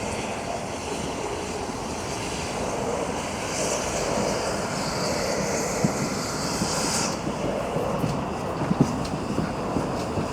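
A heritage railway train running on the line, with a loud high hiss from about three and a half to seven seconds in, then scattered clicks and knocks.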